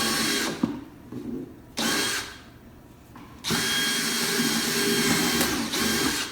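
Power drill running in three bursts into a wooden beehive box: a short run at the start, a brief blip about two seconds in, and a longer run of about two and a half seconds near the end. The bit is running into a nail already in the wood.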